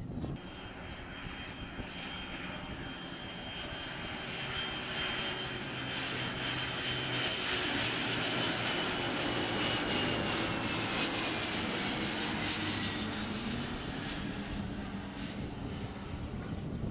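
Business jet's turbofan engines whining as it flies past on landing approach. The sound grows louder to a peak about ten seconds in, while the whine slides slowly lower in pitch, then eases off.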